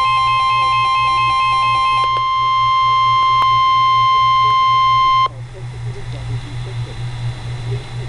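NOAA weather alert radio sounding its warning alarm. A steady tone near 1 kHz, the weather-radio warning alarm tone, starts with a pulsing beep over it. The beeping stops about two seconds in, and the steady tone cuts off suddenly after about five seconds, leaving radio hiss and a low hum.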